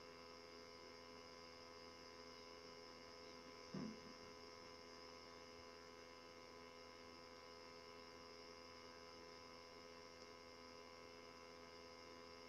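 Near silence: a steady electrical hum with several faint tones, and one brief soft handling sound about four seconds in.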